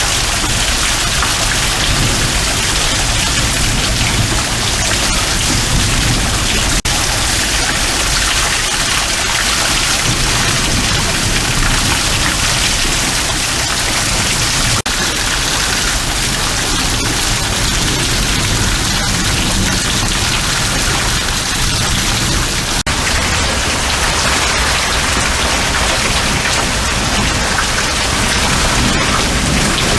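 Heavy thunderstorm rain falling in a steady downpour.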